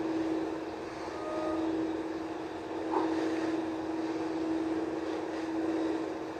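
A steady machine drone: an even rushing noise with a constant low hum.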